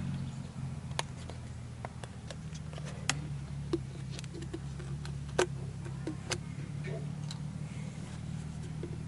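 Scattered sharp clicks and light knocks from an oil jug and funnel being handled while fresh oil is poured slowly into a tractor's oil filler, over a steady low hum. The loudest click comes a little past five seconds in.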